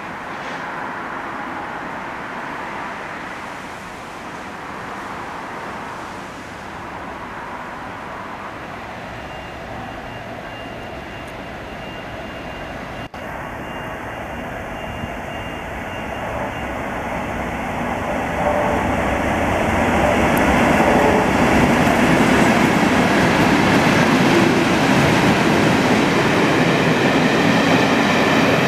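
A pair of Class 37 diesel locomotives, each with an English Electric V12 engine, running as they approach and pass, growing steadily louder. Their train of coaches then rolls by with continuous wheel and rail noise.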